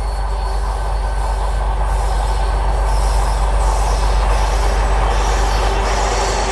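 M62 diesel locomotive's two-stroke V12 diesel engine under power as the locomotive passes close by, towing a diesel multiple unit. A steady low drone grows louder toward the middle, with a steady high whine above it.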